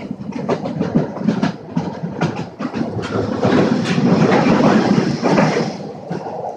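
Train running on the rails, its wheels clicking rapidly, with a louder rush of noise from about halfway that eases off near the end.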